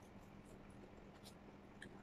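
Near silence: a metal spoon scooping rice in a stainless steel bowl gives three faint light ticks, over a faint steady low hum.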